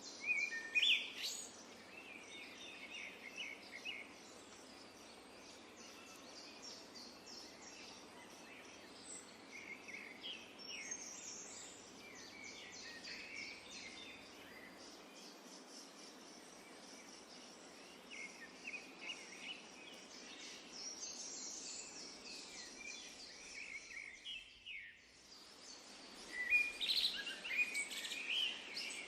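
Several songbirds chirping and trilling in quick, overlapping calls over a steady background hiss, with the loudest bursts of calls about a second in and near the end. The sound drops away briefly a few seconds before the end.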